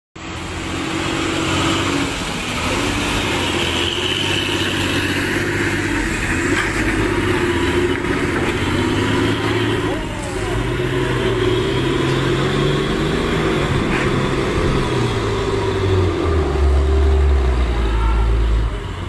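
Hino cargo truck's diesel engine running and revving as it pulls up a ferry loading ramp. Its pitch rises near the middle, and it is loudest and deepest near the end.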